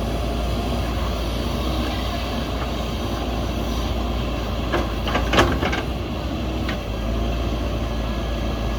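JCB backhoe loader's diesel engine running steadily at work, with a short cluster of sharp knocks a little past halfway.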